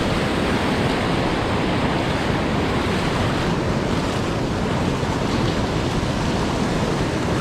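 Steady wind buffeting the microphone over waves washing on a beach.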